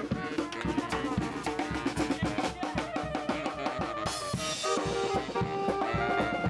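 Saxophone and drum kit playing together over a steady drum beat, with a cymbal crash about four seconds in.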